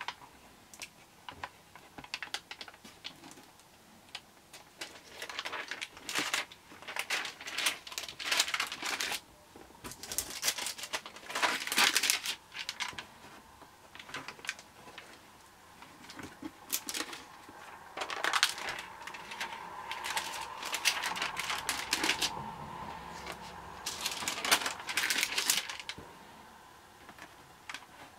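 Pages of a 64-page Lighthouse stamp stockbook being handled and turned: irregular rustling and crinkling of the stiff pages and glassine interleaving sheets, with small clicks, coming in several bursts with short pauses between.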